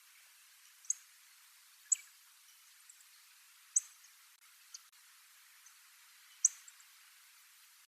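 Little Bunting giving short, sharp, very high 'tik' call notes, about five of them at irregular intervals of one to two seconds, over a faint steady hiss.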